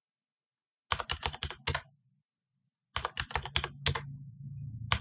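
Computer keyboard typing in two short runs of keystrokes, one about a second in and another about three seconds in. Each run is the command 'exit' followed by Enter.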